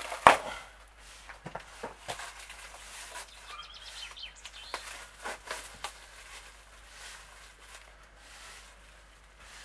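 Outdoor ambience with birds chirping now and then, and a single sharp click just after the start.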